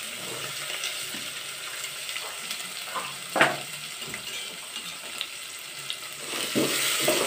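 Sliced onions sizzling as they fry in hot mustard oil with whole spices (tadka) in a steel pot: a steady hiss, with one sharp knock about three and a half seconds in and a few faint clicks.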